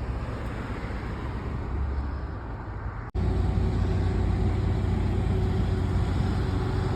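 Steady road traffic noise. It cuts out for an instant about three seconds in and comes back louder, with a heavier low rumble.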